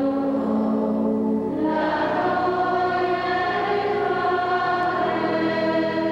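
Choir of nuns singing a slow hymn in unison, each note held for a second or more before moving to the next.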